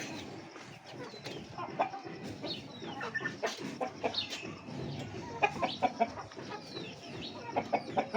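A small flock of young hens and roosters clucking and giving short calls while feeding on scattered millet grain, among many short sharp clicks.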